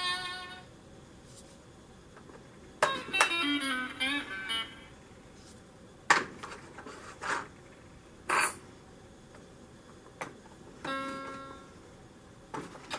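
Fisher-Price Little Superstar 2-in-1 Singing Band Walker's electronic sound module playing short bursts of toy music and sound effects as its buttons, keys and spinner are pressed with a stick. The bursts come one at a time with pauses between them: a busy musical phrase a few seconds in, a brief bright crash past the middle, and a short chord of steady tones near the end, with sharp clicks from the stick on the plastic.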